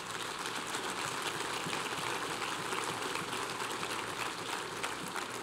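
Congregation applauding, a steady patter of many hands clapping that eases off slightly near the end.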